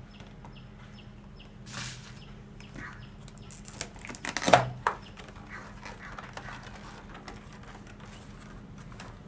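Rigid clear plastic clamshell blister pack being handled and pried open: scattered crackling and clicks, the loudest snap about four and a half seconds in.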